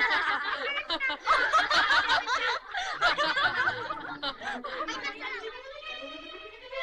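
Several people laughing together in a burst of giggles and chuckles that fades after about five seconds. Soft string music comes in near the end.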